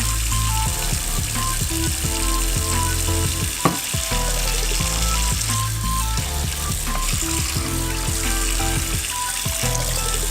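Background music with a bass line changing every second or so and a repeating high melody, over a steady hiss; one short click about four seconds in.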